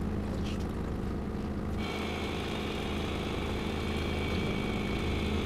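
Boat engine humming steadily. About two seconds in, a steady high whine starts: the Shimano ForceMaster 1000 electric reel's motor winding up a hooked fish.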